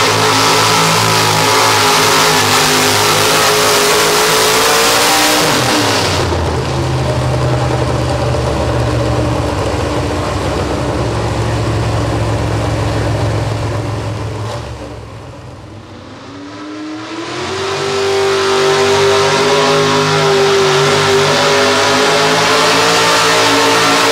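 Pickup pulling-truck engines under full throttle dragging a weight-transfer sled. The first runs hard, then falls to a low, steady idle about six seconds in. After a lull near the middle, a second truck's engine climbs in pitch and holds at full throttle for its pull.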